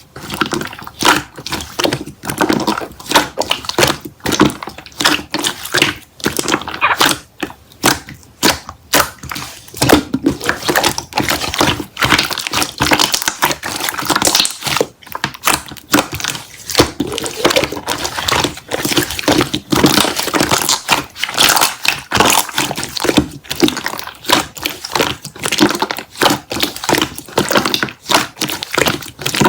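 Dense, irregular crackling and crunching clicks, many every second.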